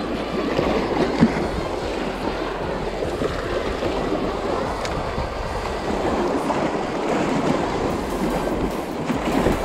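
Choppy reservoir waves splashing and churning into whitewater against rocks and a concrete dam face: a steady rushing wash of water.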